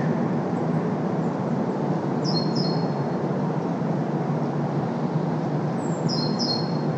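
Steady road traffic noise, with a bird giving short high calls: a pair about two seconds in and a few more near the end.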